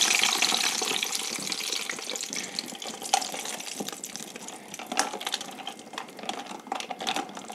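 Ice cubes clattering and sliding in a stainless steel bowl of melted vegetable ghee, a rushing noise that fades over the first couple of seconds. Then scattered clinks and knocks of ice against the steel as a hand stirs the cubes around in the fat.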